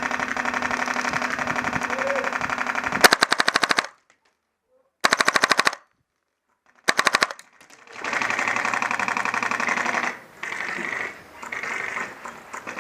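Airsoft gun firing on full auto: rapid, evenly spaced shots in bursts. The first burst runs about four seconds, and several shorter bursts follow.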